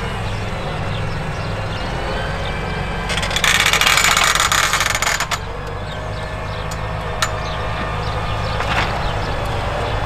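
A Claas Axion 960 tractor's six-cylinder diesel running steadily under load, pulling an eight-share plough through soil. From about three seconds in, a loud hiss lasts about two seconds, followed by a few sharp clicks.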